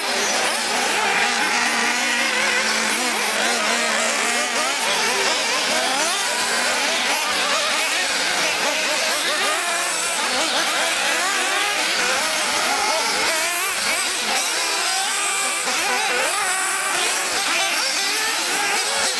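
Several 1:8-scale nitro RC buggy engines running at once, a high-pitched whine whose pitch keeps rising and falling as the cars speed up and slow down around the track.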